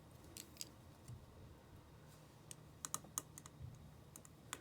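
Faint, scattered light clicks and taps of small tools and iPhone 5 parts being handled, with a quick run of several clicks about three seconds in.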